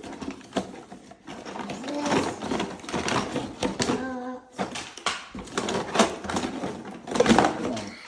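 Plastic toy parts and packaging being handled and unpacked: quick clicking, clattering and rustling.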